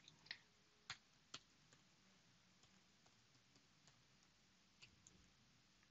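Faint, scattered clicks of computer keyboard keys being typed, a few sharper ones in the first second and a half, then fainter, irregular ones.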